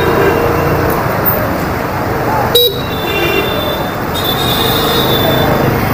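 Hero Destini 125 scooter riding through town traffic: a steady engine and road rumble, with a sharp click about halfway through. Other vehicles' high-pitched horns sound from then on, broken by a short gap.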